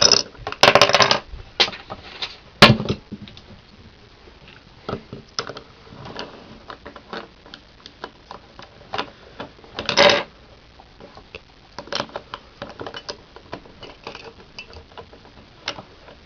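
Plastic Rubik's Cube pieces clicking and clacking as the cube is put back together by hand, with layers turned and pieces pushed into place. Louder clacks come about a second in, near three seconds and about ten seconds in, with lighter scattered clicks between.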